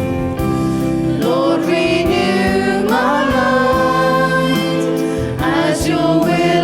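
A Christian worship song: voices singing over instrumental backing.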